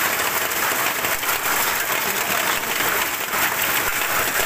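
Hailstorm: a dense, steady clatter of many hailstones striking the ground and nearby surfaces, with no let-up.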